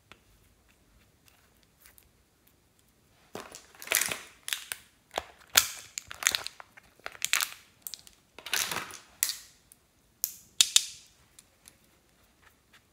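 Thin plastic packaging tray crackling and crinkling in a run of loud, irregular crackles as small makeup compacts are pried out of it, starting a few seconds in and stopping near the end.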